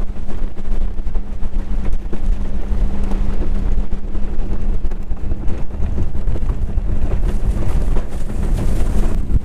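Inflatable boat running at speed under outboard power: a steady engine hum under heavy wind buffeting on the microphone.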